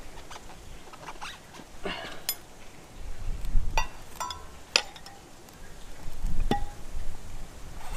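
A screwdriver clinking and scraping against a motorbike wheel rim as the tyre bead is levered over by hand: several sharp metallic clinks with brief ringing, among low knocks and rubbing.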